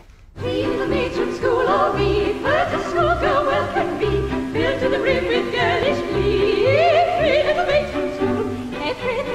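Operatic singing with a wide vibrato over instrumental accompaniment with a regular low pulse.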